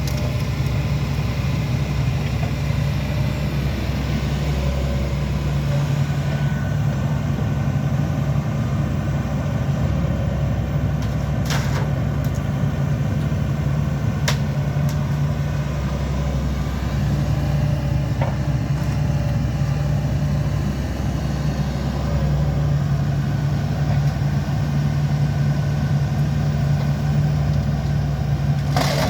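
Excavator's diesel engine running steadily, with a few short sharp clicks: two about midway, a few seconds apart, and one near the end.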